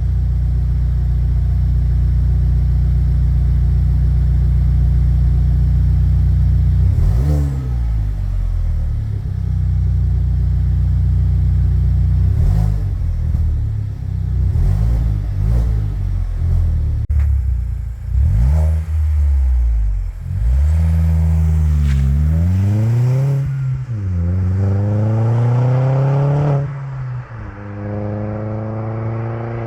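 Alfa Romeo Brera 1.75 TBI's turbocharged four-cylinder engine heard through its exhaust. It runs steadily for about seven seconds, then is revved in short blips, then in longer revs that rise and fall in pitch, with a final climb in pitch near the end.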